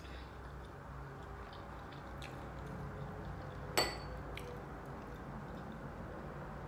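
A single sharp, ringing clink against a small glass dipping bowl about four seconds in, with a few fainter taps, over a low steady room hum.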